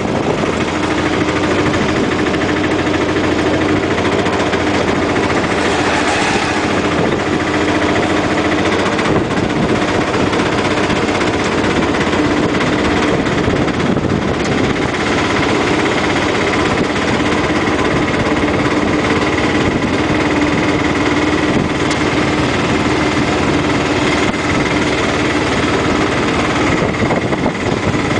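Tuk tuk (auto rickshaw) engine running steadily as it drives, heard from inside the open cab as a constant drone.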